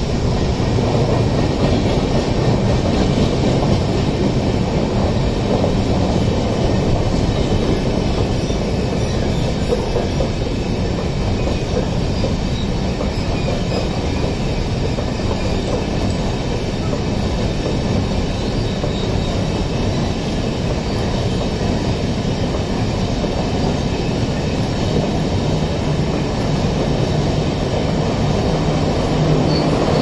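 LHB passenger coaches of an Indian Railways express train rolling slowly past, a steady rumble of wheels on the rails.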